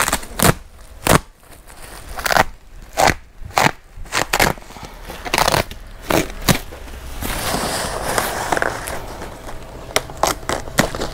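Woven plastic sacking being pulled and torn off a cardboard-boxed bale: a series of sharp crackles and crunches, with a stretch of steady rustling about two-thirds of the way through.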